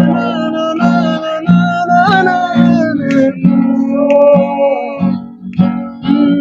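Acoustic guitar strummed, a chord struck about every two-thirds of a second in a steady chord progression.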